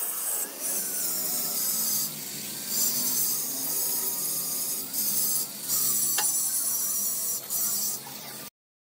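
Angle grinder with an abrasive disc grinding along a stainless steel window grill frame: a steady high grinding hiss over a faint wavering motor whine, dropping out briefly several times as the disc comes off the metal. The sound cuts off suddenly near the end.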